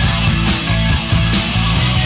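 Live rock band playing: strummed acoustic and electric guitars over a drum kit, with a steady beat of drum and cymbal hits about twice a second.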